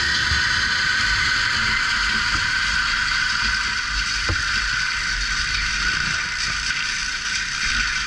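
CAT 299D3 compact track loader's diesel engine running steadily while the machine works, with a brief knock about four seconds in.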